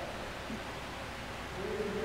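Steady hiss of room noise, then about one and a half seconds in a voice begins chanting a held note.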